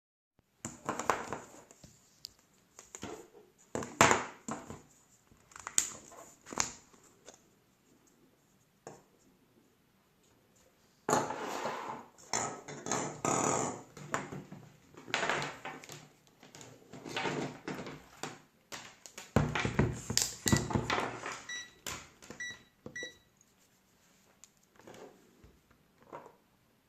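Hard objects being handled on a work surface: scattered clicks and knocks with stretches of rustling and scraping, and a run of four short high beeps a little past three-quarters of the way through.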